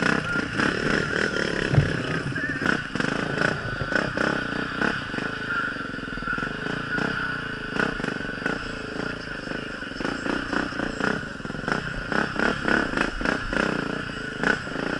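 Dirt bike engine running as it is ridden over a rutted, muddy trail, with frequent knocks and rattles from the bike that come thicker in the last few seconds.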